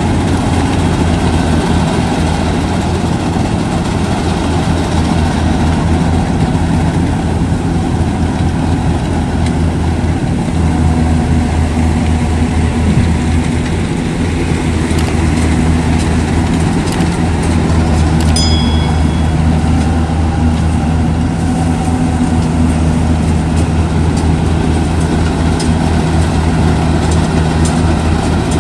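Yanmar AW70V combine harvester's diesel engine and threshing machinery running steadily as it cuts rice through deep mud.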